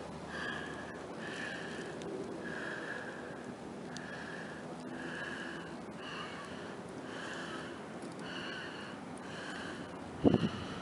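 A bird calling over and over, short calls a little under a second apart, with a single low thump near the end.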